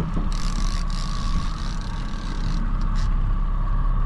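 Boat engine running steadily with a low hum and a steady whine, with a hiss over it for about two seconds near the start.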